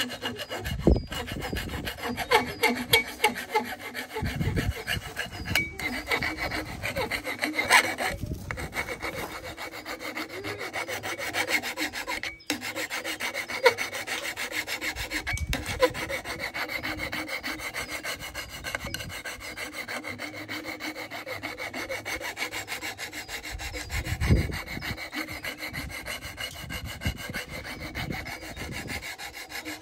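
Wood being scraped or rasped by hand in quick repeated strokes, with a few heavier knocks.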